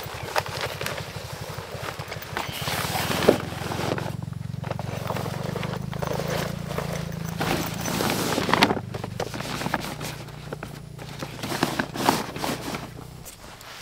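A steady low mechanical hum with a fine regular pulse, stopping suddenly near the end, with scattered knocks, clatter and rustling from gear being handled over it.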